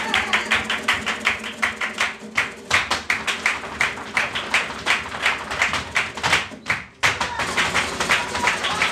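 Flamenco performance: rapid, rhythmic handclaps (palmas) and heel-and-toe footwork on a wooden stage over flamenco guitar. The sound drops away briefly about six and a half seconds in, then resumes abruptly.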